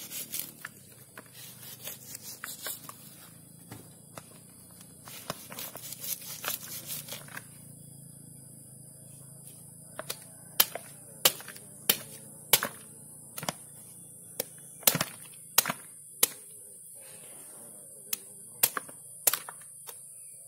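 Machete blade slicing chunks off a young jackfruit, with small cutting clicks and rustling at first. From about halfway there is a run of sharp chops, roughly one every two thirds of a second.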